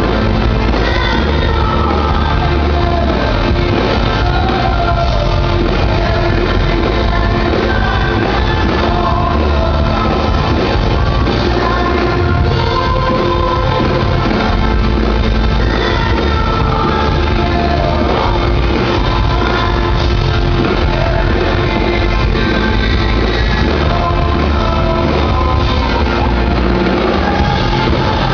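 A live pop-rock band plays a song at full volume, a male lead singer over guitars and drums, heard from the audience in a large hall.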